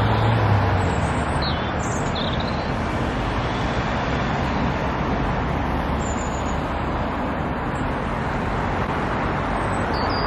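Steady road traffic noise from cars going round a roundabout, with a few short high chirps of small birds over it.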